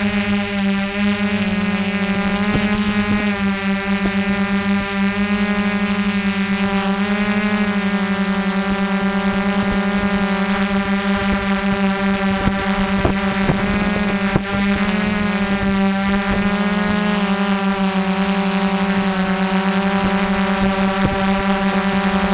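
Small motor running steadily at a constant pitch, a loud hum with a stack of slightly wavering overtones.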